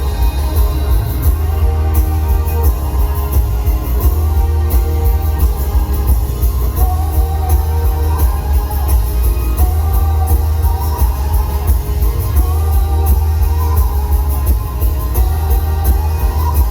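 Rock band playing live, with heavy, boomy bass. A wavering melody line comes in about seven seconds in.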